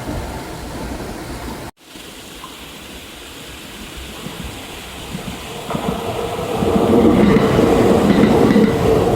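Kintetsu electric train rail noise that cuts off abruptly about two seconds in, then another train approaching, its wheel noise swelling to loud by about seven seconds, with clickety-clack over the rail joints.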